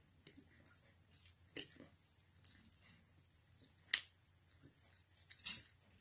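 Quiet eating sounds: a metal fork clicking a few times against a ceramic bowl of noodles, the sharpest click about four seconds in, with soft chewing.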